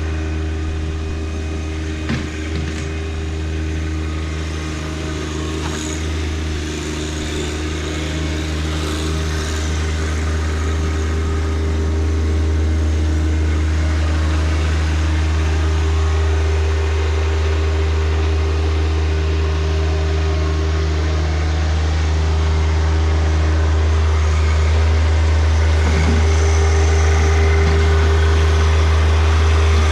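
John Deere 1025R compact tractor's three-cylinder diesel engine running steadily while its 260B backhoe digs, with a few light knocks about two seconds in; it grows a little louder about halfway through.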